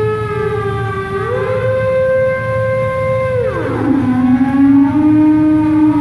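Large steam whistle sounding long held notes that slide from pitch to pitch. It rises to a high note held about two seconds, then glides down to a low note and holds it.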